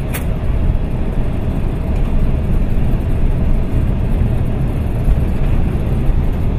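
Steady low rumble of engine and runway noise inside a KC-10 Extender's cockpit as the tanker rolls out after landing, with a brief click right at the start.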